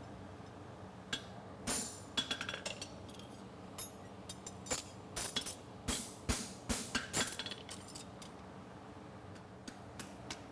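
Hammer striking a handled fuller against a cold steel horseshoe blank on an anvil to mark the fuller line: a string of sharp, irregularly spaced metallic clinks, each with a short ring, the strongest a little past the middle.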